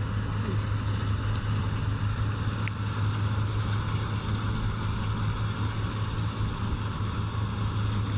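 A harvest machine's engine running steadily at constant speed, with a strong low hum and no change in pitch.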